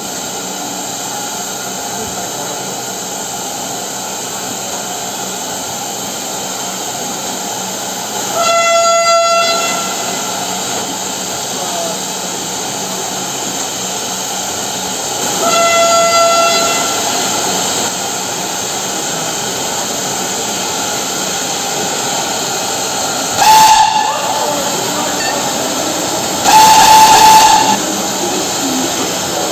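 Standing steam locomotive of DR Class 78 (78 468) hissing steadily as it blows off steam, with loud whistle blasts: two lower-pitched ones about eight and sixteen seconds in, then a short higher-pitched toot and a longer higher blast near the end.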